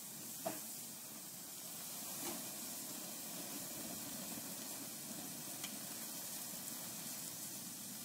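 Weak stream of water from a garden hose spraying onto a burning microwave and toaster oven, a steady hiss and sizzle.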